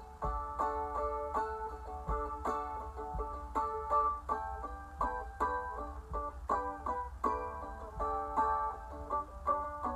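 Epiphone mandolin picked quickly, a steady run of bright plucked notes and chords.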